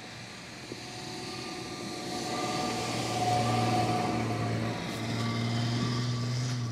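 Audi A6 C5 2.8 Quattro's V6 petrol engine pulling the car up a snowy slope under steady throttle, its note growing louder as the car drives past and holding strong, with a brief dip about two-thirds of the way through.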